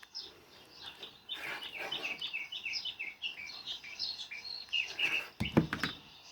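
A small bird chirping in quick, short repeated notes, with a brief noise about five and a half seconds in.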